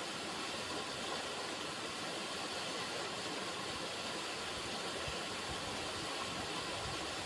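River water running steadily, a continuous even rushing with no change.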